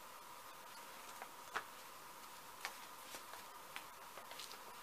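Quiet room tone with a faint steady hum and a few scattered light clicks and taps, the clearest about one and a half seconds in.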